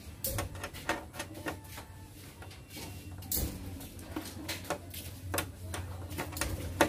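Irregular metal clicks and clinks of a 10 mm wrench on a licence-plate screw as it is turned and refitted to tighten the plate onto the car, with one sharper click near the end.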